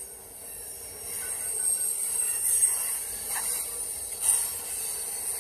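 Freight cars rolling past on the track: a steady hiss of steel wheels on the rails that grows louder about a second in, with a couple of brief louder bumps.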